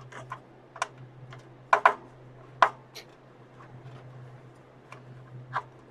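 Sharp small clicks and taps of motherboard screws and a screwdriver being handled and set down, about eight of them, irregularly spaced, the loudest pair a little under two seconds in. A steady low hum runs underneath.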